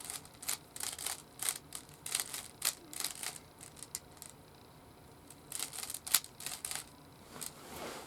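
Plastic Rubik's Cube layers being turned in quick succession: a rapid run of sharp clicks and clacks in two bursts, with a pause of about two seconds in the middle.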